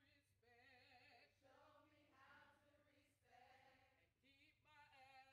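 Very faint group of women singing together in phrases, their voices wavering in pitch, over a steady low hum.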